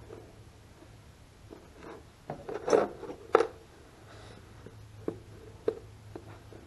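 Small parts being handled by hand during a carburetor reassembly: scattered light clicks and taps, a short clatter of knocks about two and a half to three and a half seconds in, then two single clicks.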